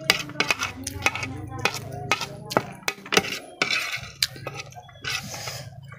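Metal spoon clinking and scraping against a plate in irregular sharp strokes while scooping fried instant noodles, with chewing and slurping mouth sounds between the clinks.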